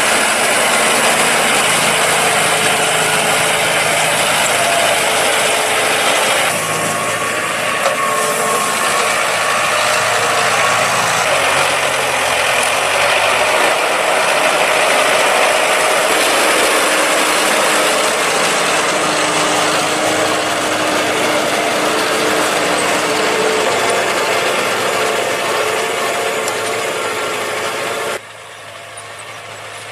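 John Deere 5100R tractor's four-cylinder diesel engine running steadily under load while pulling a three-furrow reversible plough, with a dense mechanical clatter over the engine note. The sound drops abruptly in level about two seconds before the end.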